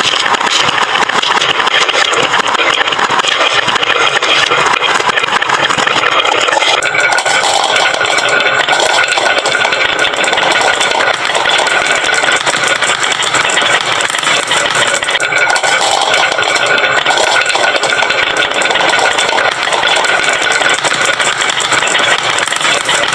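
Many wooden-run marbles rolling and clattering down a wooden slope marble run together, a dense, unbroken rattle.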